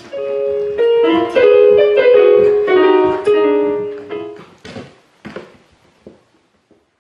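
Background music: a short piano melody of held notes that fades out after about four and a half seconds, followed by a few short knocks.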